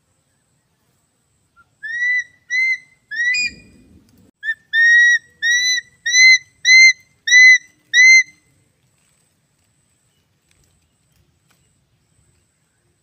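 An eagle calling: a series of about ten short, rising whistled notes at an even pace, with a brief low rustle a few seconds in.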